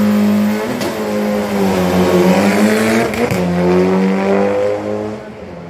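Rally car launching from the start line and accelerating hard away. The engine note climbs, breaks sharply twice as it shifts up, and fades near the end as the car pulls away up the road.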